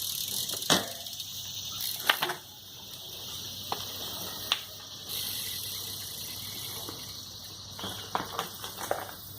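BMX bike being ridden, giving scattered sharp clicks and knocks (about a second in, around two seconds, and a cluster near the end) over a steady high hiss.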